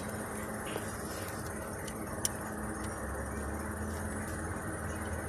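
Steady low background hum with a few faint metal clicks from a socket wrench and extension bar being handled against the engine.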